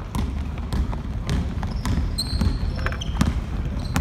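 Basketball bouncing as it is dribbled on a hardwood court, with sharp knocks every half second or so. From about two seconds in, short high squeaks of sneakers on the floor join in.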